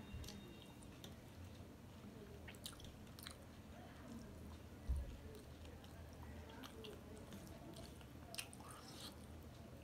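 Faint chewing and wet mouth sounds of a person eating rice mixed with cooked leafy greens by hand, with scattered small clicks. A low thump about five seconds in is the loudest sound.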